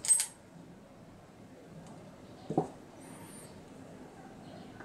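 Hands handling small parts of a camera-support device: a short sharp click right at the start and a single dull knock about two and a half seconds in, with quiet handling in between.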